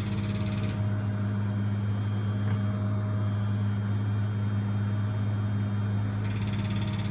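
Bosch WVH28360GB washing machine running its spin: a steady low hum that holds without change, the noise the owner calls funny when it spins.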